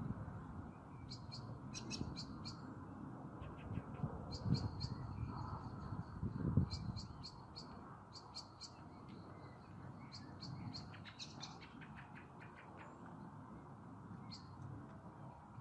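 Small birds chirping in short, quickly repeated calls over a low rushing wind, with two stronger gusts about four and six and a half seconds in, as a storm front approaches.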